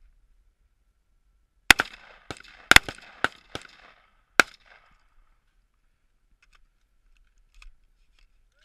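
AR-15 rifle fired in a quick, uneven string of about eight shots over less than three seconds, each crack trailing an echo. A few faint ticks follow near the end.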